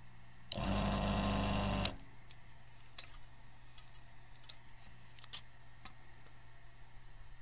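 Electric desoldering gun's vacuum pump running for about a second and a half, starting about half a second in, sucking molten solder out of a circuit board's through-holes; it stops with a click, followed by a few faint ticks.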